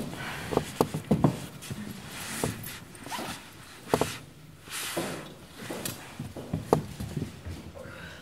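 Rustling and a zip as a handbag is rummaged through, with scattered clicks and knocks of objects being handled and set down on a table.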